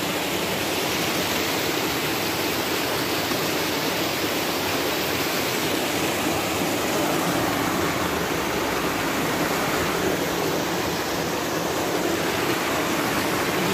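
A rocky mountain stream rushing over stones and small cascades: a steady, even rush of water.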